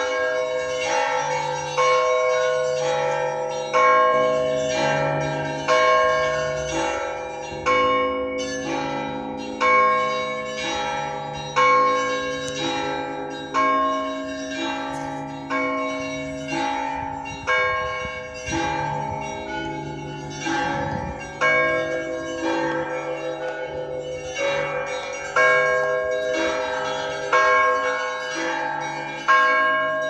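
Russian Orthodox church bells ringing together: bells of several pitches struck in a repeating pattern, a loud stroke about every two seconds with lighter strokes of smaller bells in between.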